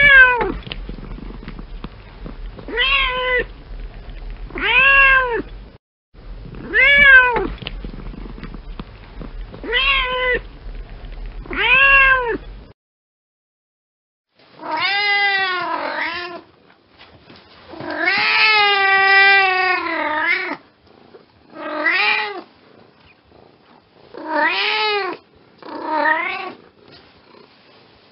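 Domestic cat meowing repeatedly: about a dozen separate meows that rise and fall in pitch, with one long, wavering meow about two-thirds of the way through.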